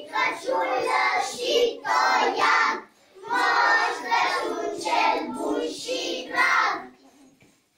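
A group of young children singing a song together in unison, in two sung phrases with a short break about three seconds in; the singing ends about a second before the end.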